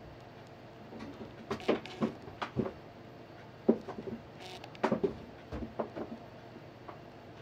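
A cat playing inside a wire cage, knocking against the metal bars and plastic litter tray: a string of irregular light knocks and rattles, busiest in the middle.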